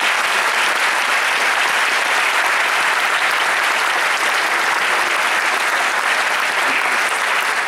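Audience applauding steadily, a dense even clapping of many hands.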